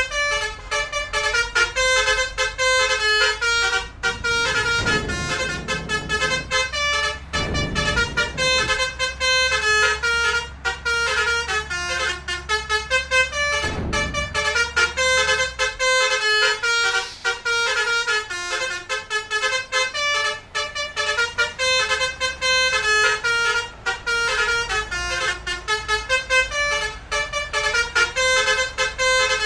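Telolet basuri horn, a multi-trumpet electric vehicle horn, playing a rapid tune of short, quickly changing notes without a break. A low engine rumble runs underneath through about the first half.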